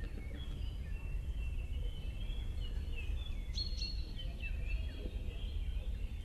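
Several birds calling with short chirps and whistles, mostly falling in pitch, with one brief held whistle a little past halfway, over a low steady rumble.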